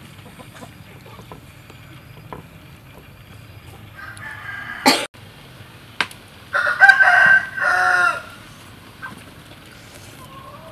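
A rooster crowing once, about a second and a half long, its pitch dropping at the end. A sharp click comes shortly before it.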